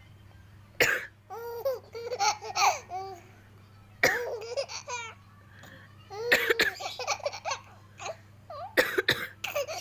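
A woman coughing and laughing: four sudden coughing fits, about a second in, at four seconds, around six and a half seconds and near the end, each trailing into a run of laughter.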